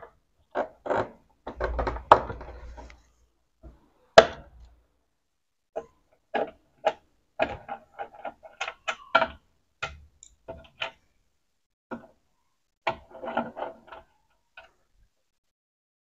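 Phillips screwdriver turning screws out of a washing machine's plastic control panel: irregular small clicks, ticks and scrapes of metal on plastic, with one sharper knock about four seconds in. Near the end, more plastic clicks as the panel is handled.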